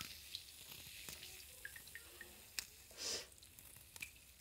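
Faint drips and small splashes of bathwater around wet fingers, with a brief louder swish of water about three seconds in.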